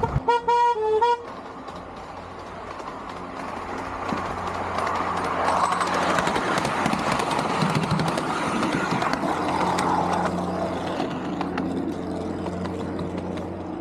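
A ride-on miniature railway locomotive's horn gives a quick run of short toots in the first second. Then the train runs past on the rails with a steady low hum and a rumble that swells through the middle and eases off near the end.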